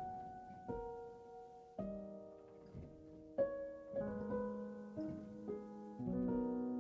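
Background music: a gentle piano melody with notes struck every second or so and left to ring.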